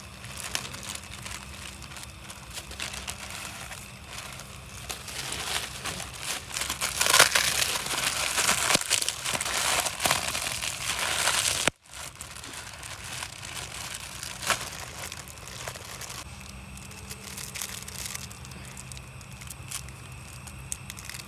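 Plastic instant-noodle seasoning packets being torn open, squeezed and crinkled by hand. The crinkling is loudest in the middle, breaks off suddenly about halfway, then goes on more quietly.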